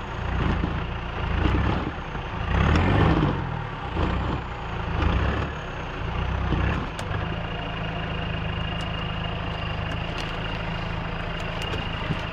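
Off-road 4x4's engine revving hard in repeated surges, about one every second and a half, as the vehicle strains over rocks. About seven seconds in it settles to a steady, even running speed with a thin high whine.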